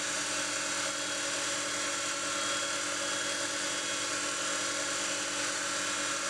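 Wood lathe running at a steady speed, a pen blank spinning on its mandrel while a micromesh pad is held against it to buff the wood: an even motor hum with several constant tones over a steady hiss.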